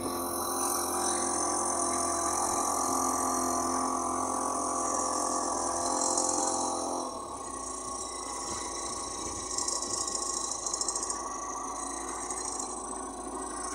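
A small cabin cruiser's Chinese-made engine running steadily under way. About seven seconds in its note changes and it runs a little quieter and rougher.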